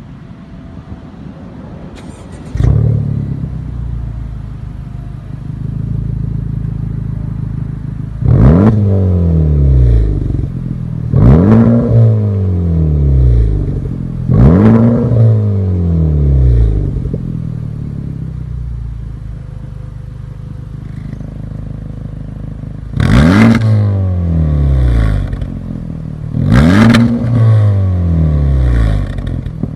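Honda Civic Type R FK8's turbocharged 2.0-litre four-cylinder engine starts about two and a half seconds in and settles to idle. It is then revved five times, three and then two: each rev climbs quickly and drops back to idle.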